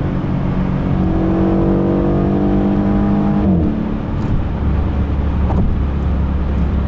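Mercedes E63 AMG's 5.5-litre twin-turbo V8, heard from inside the cabin, pulling under acceleration with its revs climbing slowly. About halfway through the pitch drops sharply as the gearbox shifts up, and the engine settles into a deep, low drone.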